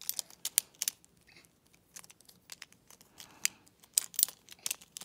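Irregular small clicks and snaps of Beyblade Burst spinning-top parts being handled and fitted together by hand.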